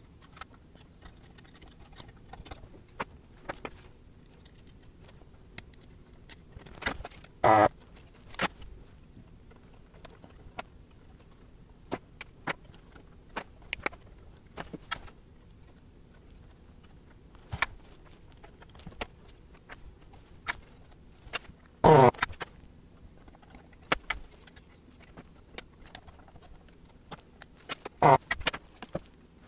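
Light clicks and taps of hand tools and component leads on a metal amplifier chassis. Three times a short, loud buzz of a vacuum desoldering gun's pump sucks solder from a joint as the old capacitors are removed.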